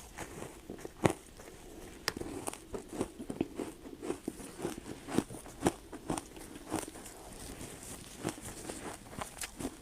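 Ice being bitten and crunched: a string of irregular sharp cracks and crunches, several a second, the sharpest about a second in.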